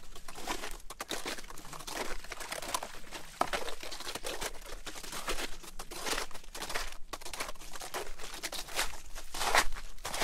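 Snowshoe footsteps crunching through fresh snow at a walking pace of about two steps a second, with one louder step near the end.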